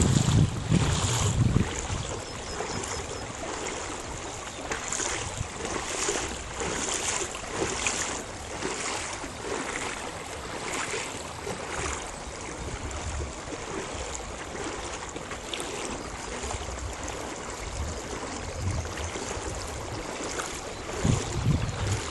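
Small waves lapping against an inflatable boat on choppy lake water, with a low rumble of wind on the microphone that is strongest in the first two seconds and again near the end.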